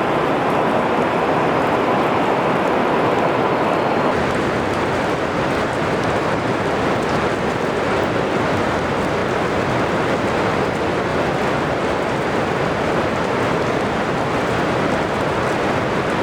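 Rain falling in a thunderstorm: a steady, even hiss with no thunderclap.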